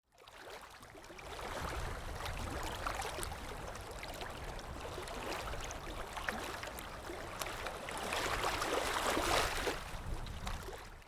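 Ambience of moving water: a steady wash of splashing and gurgling over a low rumble. It fades in over the first couple of seconds, grows a little louder near the end, then stops suddenly.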